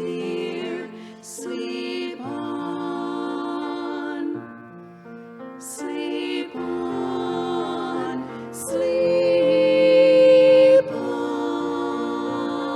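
A women's vocal trio singing a slow lullaby-style Christmas song in close harmony, accompanied by piano and flute, with long held notes; the loudest held note swells about nine seconds in and cuts off near eleven seconds.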